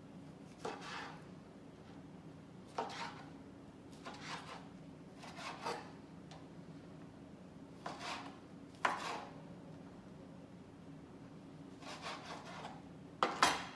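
Kitchen knife slicing tomatoes on a cutting board: a series of separate cuts, each a short scrape and knock, spaced irregularly a second or two apart, with two louder strokes near the end.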